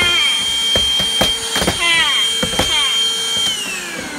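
Handheld cordless vacuum running with a steady high whine, its nozzle knocking against the window sill and track, with a few short falling squeals from the suction. About three and a half seconds in it is switched off, and the whine glides down as the motor spins down.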